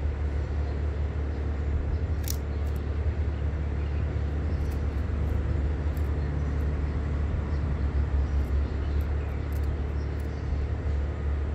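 Steady low rumbling background noise with an even hiss above it, and a faint click about two seconds in; no birdsong.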